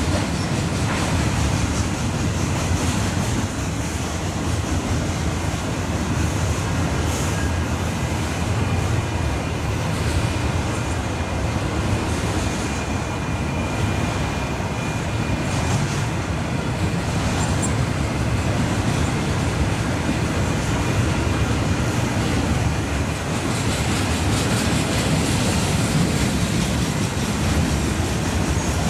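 Loaded Union Pacific freight train rolling past: a loud, steady rumble and rattle of the wheels on the rails.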